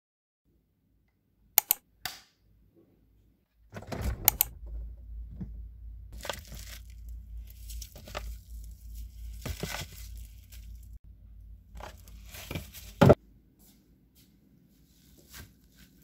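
Plastic wrap and bags around packs of cookie dough rustling and crinkling as they are handled in an open refrigerator, over a low hum. A couple of sharp clicks come near the start, and a loud thump about 13 seconds in cuts the hum off.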